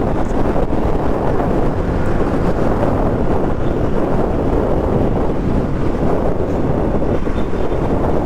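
Steady wind rushing over the microphone while riding a Bajaj Pulsar NS200 motorcycle, with its single-cylinder engine running underneath.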